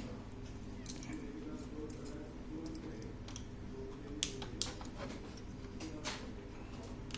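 A handful of short, sharp clicks and taps from the plastic parts of a Canon LiDE flatbed scanner as its motor unit is taken apart by hand, over a steady low hum.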